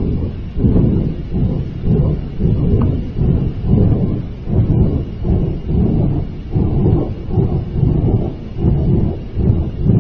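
Loud, low rumbling roar that surges and drops several times a second: strong storm wind buffeting the microphone.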